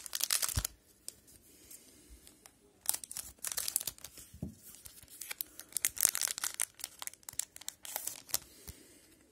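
Wrapper of an Upper Deck hockey card pack being torn open and crinkled: a short burst of tearing at the start, then a longer stretch of irregular tearing and crackling from about three seconds in until near the end.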